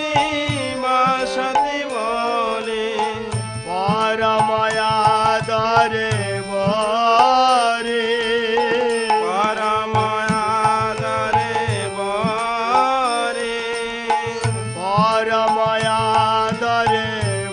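Vaishnava devotional song: a wavering sung melody with vibrato over a steady drone, with hand-drum strokes underneath.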